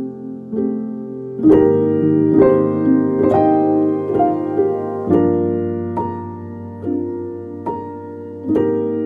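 Background piano music: a slow tune of notes and chords struck about once a second, growing fuller about one and a half seconds in.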